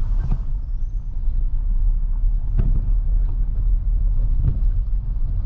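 A car being driven, with a steady low rumble of engine and road noise and a few light knocks.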